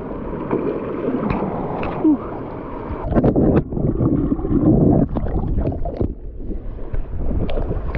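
River water rushing, then splashing and churning heavily in uneven bursts from about three seconds in as a person bathes in the cold, shallow, rocky river.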